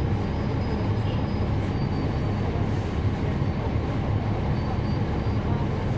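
Cummins ISL9 diesel engine of a 2012 NABI 416.15 (40-SFW) transit bus heard from inside the cabin, running with a steady low rumble.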